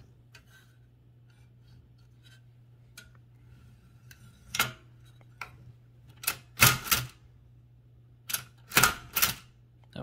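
Toshiba BW-3112 Japanese kanji typewriter typing: faint mechanism clicks at first, then about seven sharp type strikes from a little before halfway on, several in quick succession.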